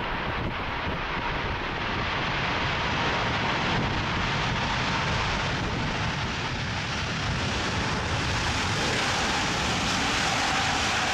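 Airbus A380-861's four Engine Alliance GP7200 turbofans running as the airliner rolls along the runway: a steady rumble and roar that slowly grows louder, with a thin whine that drops slightly in pitch near the end as the aircraft passes.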